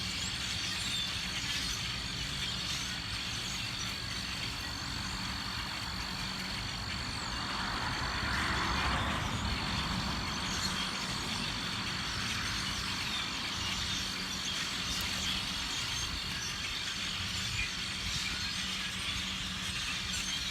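A large flock of birds calling and chattering together as they come in to roost, over a low steady rumble of traffic. A vehicle passes about eight to ten seconds in.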